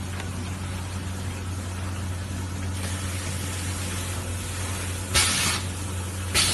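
EPE foam sheet feeding and slitting machine running with a steady electrical hum. About five seconds in comes one short, loud hiss lasting about half a second.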